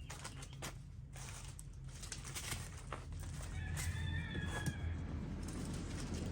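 A single drawn-out animal call about four seconds in, over scuffing steps and clicks and a steady low hum.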